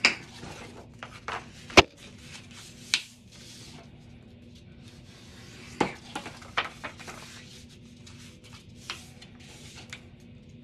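Thin patterned paper being folded and rubbed along its creases to burnish the folds of a handmade box, with about six sharp taps or clicks on the work surface, the loudest a little under two seconds in.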